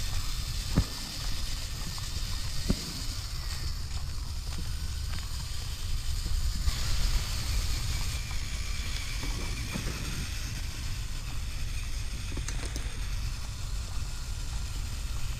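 Axial Capra RC rock crawler driving over a gravel and dirt trail: the faint whine of its electric motor and drivetrain rising and falling, tyres crunching over gravel and twigs, under a low rumble of wind on the microphone. Two sharp knocks come in the first three seconds.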